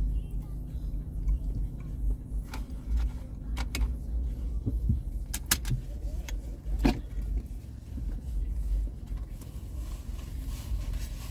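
Low, steady rumble of an idling car heard from inside its cabin, with a low hum that fades out about two seconds in. A few sharp clicks sound in the middle, the loudest one about seven seconds in.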